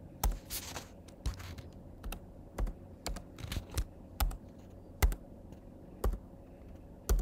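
Laptop keyboard being typed on slowly, one key at a time: about a dozen separate keystroke clicks, unevenly spaced, as a password is entered.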